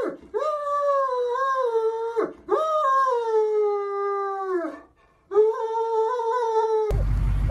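Great Dane howling in three long, whining calls with short breaks between them, the first two sliding down in pitch at their ends.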